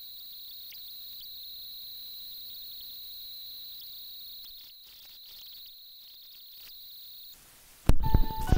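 Steady high-pitched buzz of insects, then loud music cutting in abruptly near the end.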